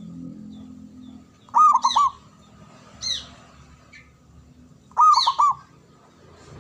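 Male zebra dove (perkutut) cooing: two phrases about three and a half seconds apart, each a quick run of three or four rolling coo notes. A shorter, higher falling call comes between them.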